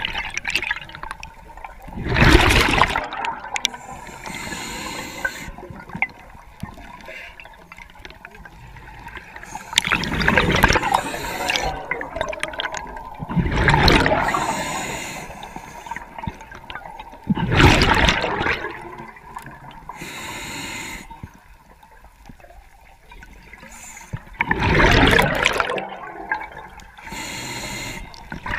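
Underwater, a scuba diver breathing through a regulator: a loud gush of exhaled bubbles every few seconds, five times in all, with quieter hiss between.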